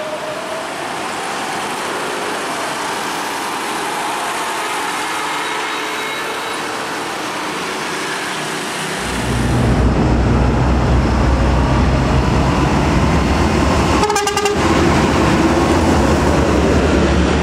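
Heavy trucks driving past close by. First a UD Quester tractor-trailer passes with steady engine and tyre noise. About nine seconds in a much louder low rumble starts as a tanker truck passes, with a brief rapid rattle about fourteen seconds in.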